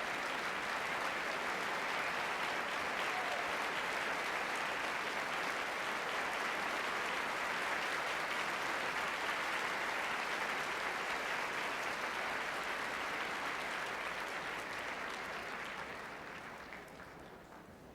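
Concert-hall audience applauding steadily after an orchestral performance, the clapping fading away over the last few seconds.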